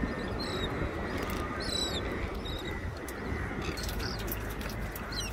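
A few short, high bird chirps over a steady rushing background of wind and water, the clearest chirp about two seconds in and another near the end.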